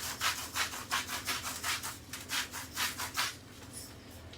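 Salt grinder being twisted over the chips: a run of short gritty grinding strokes, about four or five a second, that stops about three seconds in.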